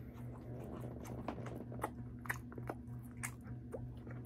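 Close-miked chewing of a mouthful of food, with wet mouth clicks about every half second over a steady low hum.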